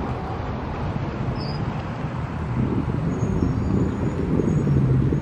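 Road traffic: the low, steady rumble of a motor vehicle's engine, swelling a little near the end, with a few faint high chirps.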